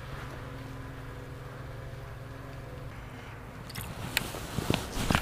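Baitcasting reel being cranked on a lure retrieve: a steady low whirr that fades out about three seconds in, then a few light clicks and knocks.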